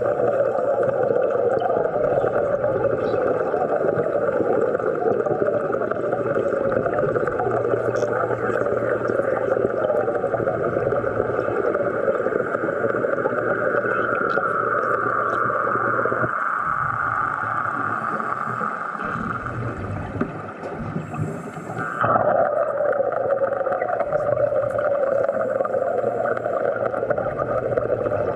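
Underwater bubbling and rushing of a commercial diver's air supply. It runs steadily, drops away for several seconds past the middle, then comes back.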